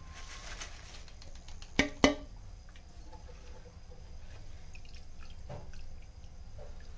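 Crisp fried banana chips tipped from a wire strainer onto paper tissue with a brief rustle, then two sharp metal taps about two seconds in as a wire skimmer knocks against the steel frying pan. After that, faint dripping and light sizzle as the skimmer lifts a batch of chips out of the hot oil.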